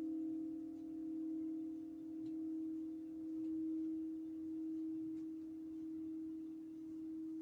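Crystal singing bowls sounding a steady low tone with fainter higher tones above it, the sound gently swelling and easing about once a second.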